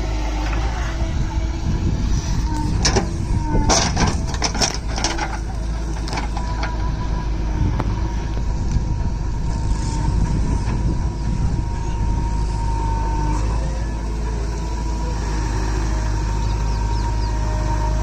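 JCB backhoe loader's diesel engine running under working load as the backhoe arm digs soil, with a steady whine over the engine drone. A run of clanks and knocks comes about three to five seconds in.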